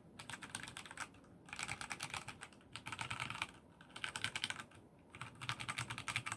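Keys of a Royal Kludge RK61 mechanical keyboard with RK brown switches being pressed in about six quick bursts of rapid clacks with short pauses between. These are the larger stabilized keys being tested for stabilizer rattle.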